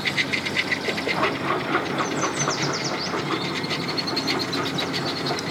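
Boat engines running with a steady low hum, overlaid by a fast clicking rattle over the first half and a few short high squeaks around the middle.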